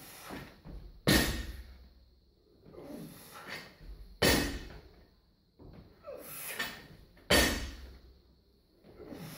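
A loaded barbell with green 10 kg rubber bumper plates hitting the floor three times, about three seconds apart, as each lift is set down. There are quieter sounds between the thuds.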